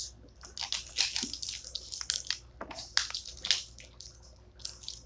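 Plastic toy packaging being handled and picked at: a scatter of small clicks, taps and crinkles.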